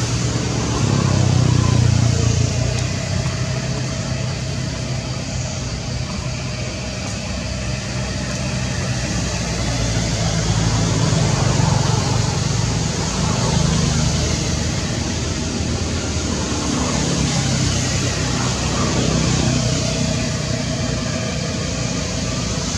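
Steady low rumble of road traffic, swelling and easing as vehicles pass, with faint voices.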